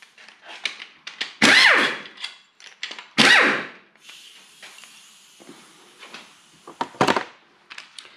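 Pneumatic impact wrench (rattle gun) run in two short bursts, undoing timing-belt cover bolts, its pitch falling as each burst winds down. Then a faint steady hiss of air, small clicks of handling and a sharp knock about seven seconds in.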